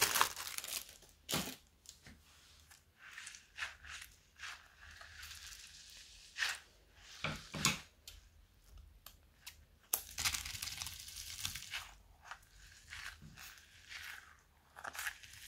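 Hands crinkling a thin plastic bag, then squeezing and tearing open a squishy stress ball filled with tiny foam beads, in scattered short crackles, rustles and crunches. The busiest stretch comes about ten seconds in.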